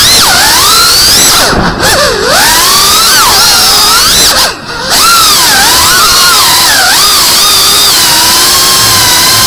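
Brushless motors of a GEPRC FPV drone whining, heard from the onboard camera, the pitch swinging up and down as the throttle changes. A brief throttle cut about four and a half seconds in, then a steadier whine near the end.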